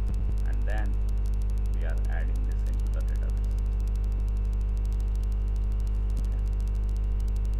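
Steady electrical mains hum picked up by the recording: a low, unchanging buzz with evenly spaced overtones.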